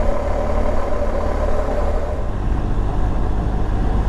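BMW R1200GS boxer-twin motorcycle cruising steadily on the road, its engine running under a heavy, unbroken rush of riding wind and road noise.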